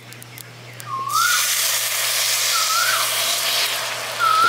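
Water poured into a hot kadai of sugar, hissing and sizzling from about a second in. A bird's short rising-and-falling whistled call repeats three times over it.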